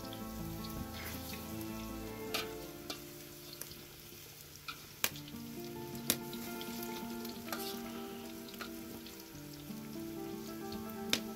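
Battered spiral-cut potatoes on skewers frying in hot oil in a large wok, a steady sizzle, with several sharp clinks of utensils against the metal bowls.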